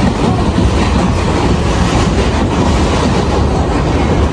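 New York City 6 train subway car running along the line, heard from inside the car: a steady rumble of wheels on the rails with light track clatter.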